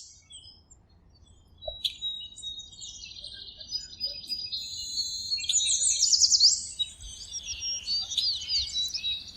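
Several songbirds chirping and trilling over one another, sparse at first and building to a dense chorus about two seconds in.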